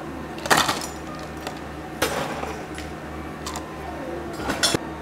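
Ice cubes tipped from a metal ice scoop into clear plastic cups, clinking and clattering in several separate bursts. The loudest come about half a second in and near the end.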